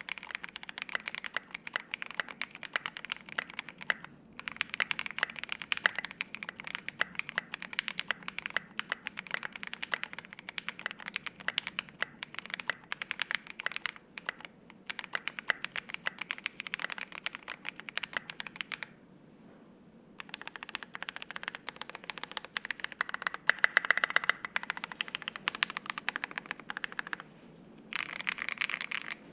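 Fast typing on an ai03 Polaris 60% gasket-mount mechanical keyboard with lubed Alpaca linear switches on a half FR-4 plate and SA double-shot ABS keycaps: a dense run of keystroke clacks. It pauses briefly about four seconds in, again around nineteen seconds and near the end, and is loudest around twenty-four seconds.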